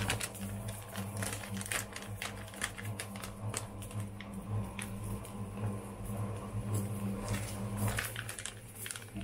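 Eggs and spinach sizzling in a frying pan: an irregular run of small crackles and pops over a steady low hum.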